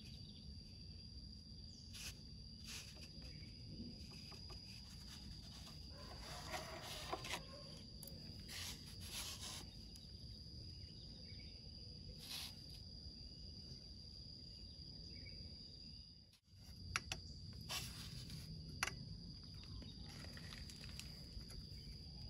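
Quiet background with a low steady rumble and a steady high-pitched insect tone, like a cricket, running throughout. A few faint clicks and rustles come and go, the sharpest near the end.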